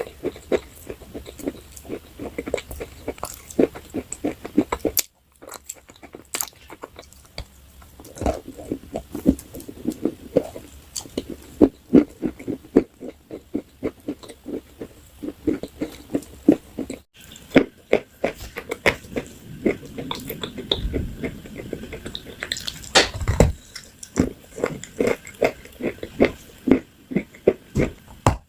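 Close-miked crunching and chewing of a hard, brittle food: many sharp crunches in quick succession. The sound drops out briefly twice, about five seconds in and again around seventeen seconds.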